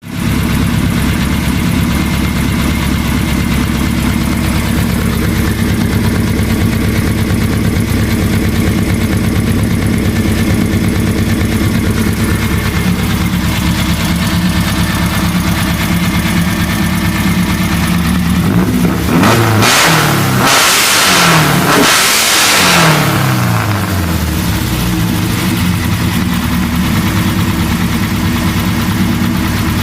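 1914cc air-cooled flat-four engine with dual Weber 44 IDF carburettors, heard through an A1 Sidewinder exhaust, idling steadily. About two-thirds of the way in it is revved up twice in quick succession, each rev falling away, before settling back to idle.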